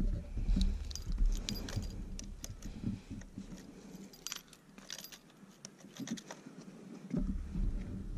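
A bunch of motorcycle keys jangling and clicking in a gloved hand as the key is fitted to the ignition, many light metallic clicks. A low rumble drops away partway through and comes back suddenly near the end.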